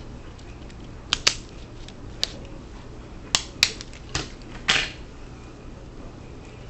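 Adhesive tape being pulled off and torn for a repair: a scattered series of about seven short, sharp crackles and clicks over a few seconds, the last one a little longer.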